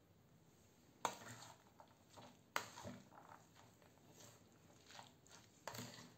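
A metal spoon mixing shredded cabbage and carrot in mayonnaise dressing in a bowl. The spoon strikes the bowl sharply twice, about a second apart in the first three seconds, between soft rustling, squishing strokes, with another flurry of stirring near the end.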